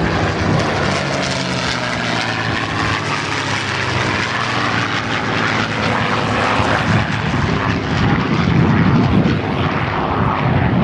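Piston-engined WWII propeller fighter flying past at an air display: a loud, continuous engine drone whose pitch slowly falls over the first few seconds as it passes.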